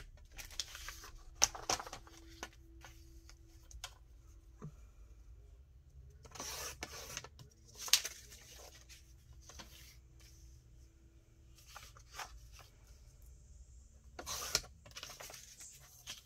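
Paper and card being handled on a work surface: scattered rustling and rubbing, with a few sharp taps.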